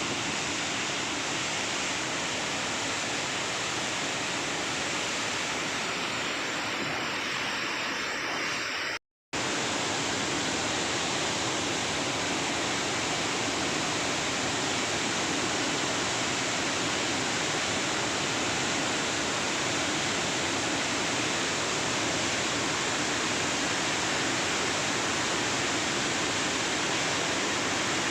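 Floodwater pouring through the open spillway gates of a dam, a steady, even rush of water. The sound cuts out for a moment about nine seconds in, then carries on unchanged.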